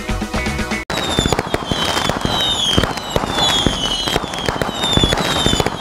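Fireworks sound effect: dense crackling and popping with short falling whistles repeating about every half second. It starts abruptly about a second in, when the guitar music cuts off.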